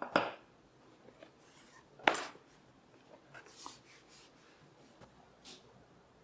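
A large leather hide being handled and pulled off a workbench: two louder rustling knocks, one at the start and one about two seconds in, then lighter scuffs and rustles.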